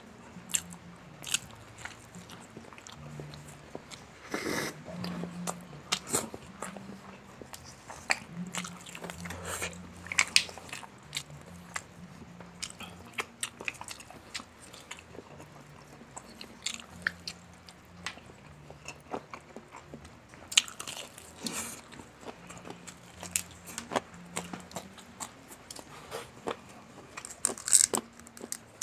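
Close-up eating sounds of Jollibee Chickenjoy fried chicken: biting into the crispy skin and chewing, with irregular crunches and wet mouth clicks.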